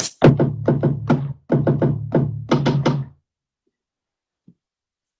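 Music: a run of repeated percussive hits over a low held tone, which stops abruptly about three seconds in.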